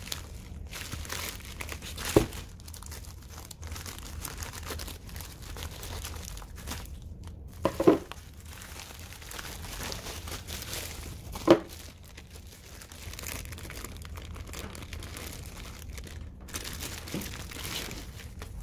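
Plastic courier mailer bag crinkling and tearing as it is handled and ripped open by hand, with a few sharp loud crackles along the way.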